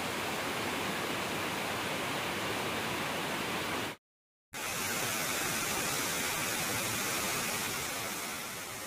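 Steady rush of a waterfall's falling water, cut off for about half a second around four seconds in.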